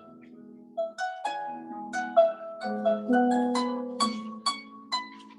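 Instrumental prelude music: a melody of separate plucked or struck notes, each starting sharply and ringing on, with lower notes sustained beneath.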